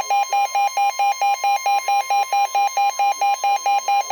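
Weather-radio alert: a steady warning tone with an electronic alarm beeping over it about four times a second, sounding for a severe thunderstorm warning.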